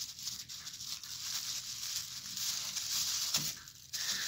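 Thin plastic bag rustling and crinkling as fingers work at its knot, with a brief lull near the end.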